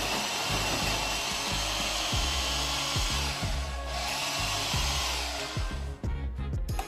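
Welhome ZD-16 electric coffee grinder running steadily as it grinds beans on its coarsest setting, then switching off about six seconds in. Background music plays underneath.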